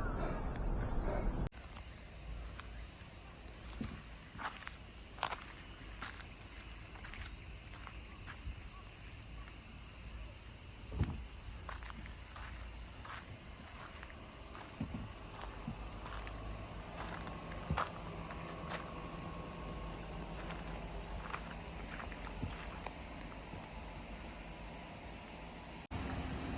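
Steady high-pitched insect chorus, with scattered faint clicks and knocks. It starts and stops abruptly, about a second and a half in and just before the end.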